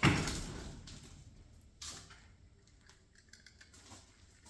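A sudden heavy clunk that fades over about a second, then a lighter knock and a few faint clicks: a freshly removed leaf spring and tools being handled under a truck.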